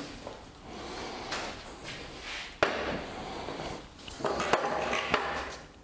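Wooden sawhorses being set down and shifted on a stone-tile floor: wood scraping and knocking on stone, with one sharp knock about two and a half seconds in.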